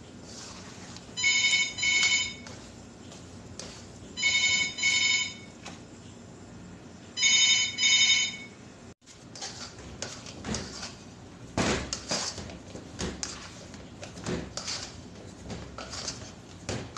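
A telephone rings three times in a double-ring pattern, ring-ring, about three seconds apart; this is the loudest sound. After the ringing stops comes irregular scraping and slapping of dough kneaded by hand in a stainless steel bowl.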